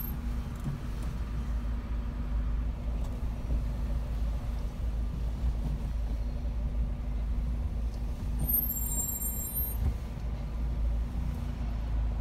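Steady low rumble of a car heard from inside its cabin, the engine running as the car creeps along in slow traffic.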